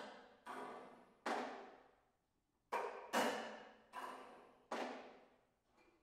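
Snare drum played solo: about seven separate strokes with pauses between them, some coming in quick pairs, each ringing out and dying away before the next.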